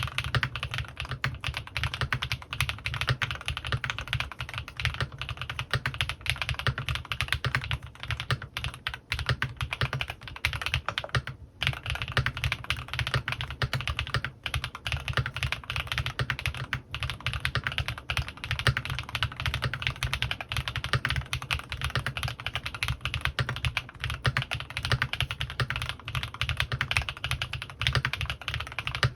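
Steady, fast typing on a CannonKeys Rekt1800 custom mechanical keyboard with Gateron x Swagkeys Pure Berry linear switches lubed with Krytox 205g2 and PBT keycaps, a dense run of keystrokes with a brief break about eleven seconds in.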